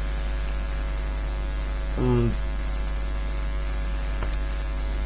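Steady low electrical mains hum with faint higher hum tones above it. A short voiced sound comes about two seconds in.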